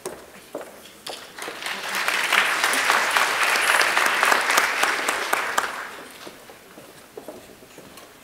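Audience applause, a dense patter of many hands clapping that swells about a second and a half in and dies away after about six seconds.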